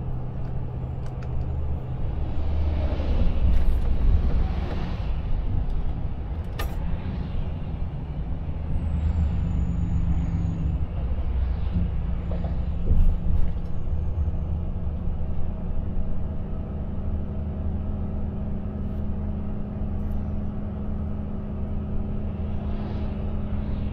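Inside the cab of a Volvo FH 500 Aero truck on the move: the 13-litre six-cylinder diesel drones steadily under the hiss of tyres on a wet road. A swell of hiss rises and falls about three to five seconds in, and a single sharp click comes near seven seconds.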